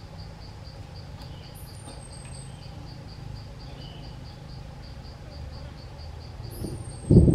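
Insects chirping steadily in a fast pulsing rhythm of about four pulses a second, over a low hum, with a thin high falling whistle twice. Right at the end comes a loud low thump.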